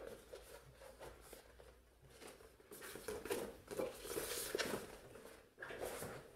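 Paper and tissue paper rustling and crinkling in irregular bursts as printed leaflets are handled and pulled out of a cardboard box, loudest midway through.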